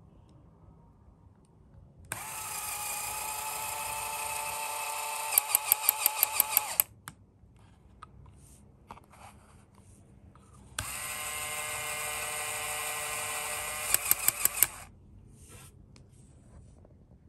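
Small LEGO Technic electric motor whining as it drives a scissor mechanism, in two runs of about four to five seconds each. Each run ends in a quick series of sharp clicks, about six a second, before the motor stops. Light plastic clicks of parts being handled come between the runs.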